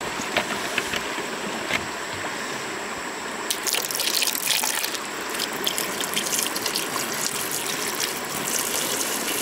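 Water poured into a metal cooking pot over two carp, splashing and trickling louder from about three and a half seconds in. Before that, a running stream and a few light clicks.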